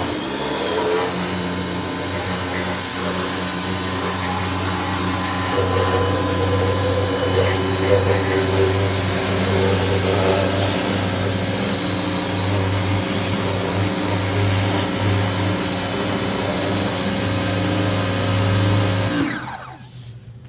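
Electric pressure washer running steadily, its motor and pump humming under the hiss of the spray jet hitting the underside of a car. The motor cuts off near the end as the trigger is let go.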